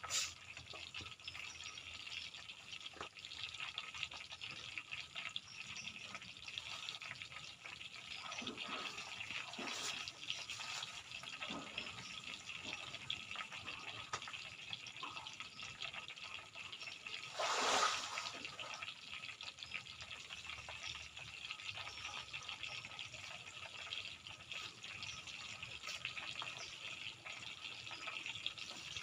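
Tofu frying in hot oil, a steady crackling sizzle throughout, with a louder surge of sizzling about two-thirds of the way through.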